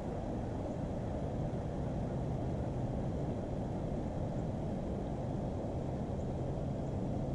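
Steady low outdoor rumble with a faint hum, even throughout and with no distinct events.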